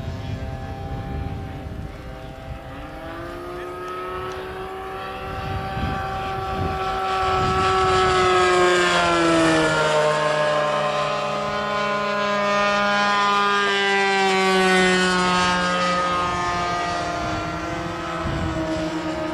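O.S. 1.60 two-stroke glow (nitro) engine of a giant-scale RC aerobatic plane running in flight. It swells loudest as the plane passes close about eight seconds in, with a drop in pitch about nine seconds in, then shifts pitch again as it manoeuvres.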